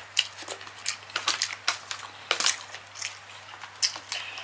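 Close-miked eating sounds: wet chewing and lip smacks as sauce-coated corn kernels from a Cajun seafood boil are eaten by hand, in quick irregular clicks.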